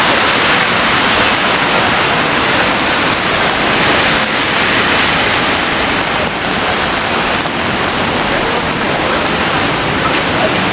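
Steady heavy rain falling on a city street, an even loud hiss of water.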